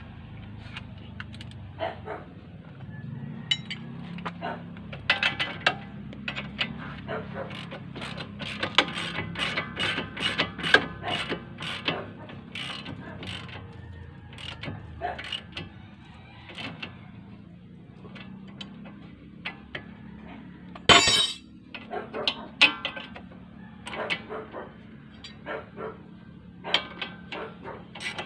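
Hand ratchet wrench clicking in quick runs as bolts on a Toyota CR-V's front suspension are turned, with metal tools knocking against each other. One louder metal clank comes about three quarters of the way through.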